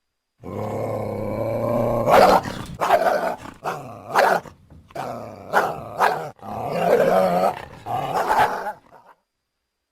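Coyote growling low for about a second and a half, then breaking into a string of short, sharp barks and growls before stopping suddenly.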